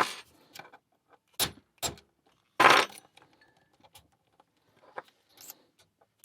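A small hammer tapping a bump key in a euro cylinder lock: several sharp metallic knocks at uneven intervals, the loudest a short cluster about two and a half seconds in, with the key rattling in the cylinder.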